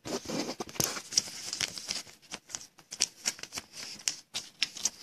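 Hands handling thick trading cards and plastic card sleeves: a quick, irregular run of small clicks and rustles.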